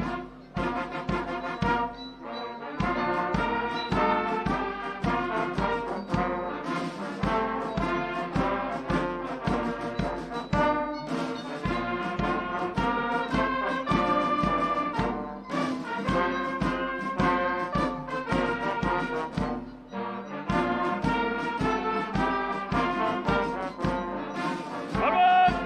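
Brass music with a steady beat, ending on a held chord.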